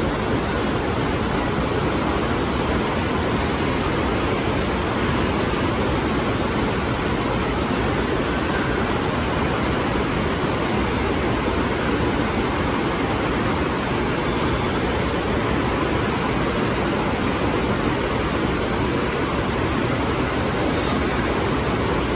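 FlowRider surf simulator running: a thin sheet of pumped water rushing steadily up and over the padded slope.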